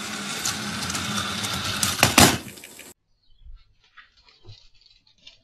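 A battery-powered toy train running on its track with a steady motor hum and rattle, and two loud clacks about two seconds in. The sound stops suddenly at about three seconds, and only faint scattered small noises follow.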